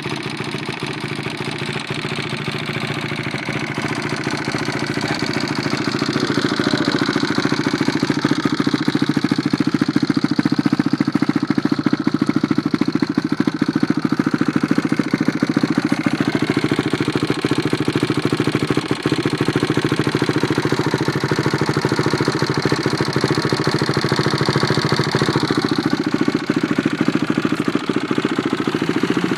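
250cc four-stroke single-cylinder motocross bike engine idling on its first run after a rebuild. It is a steady, even beat that gets louder about six seconds in and then holds.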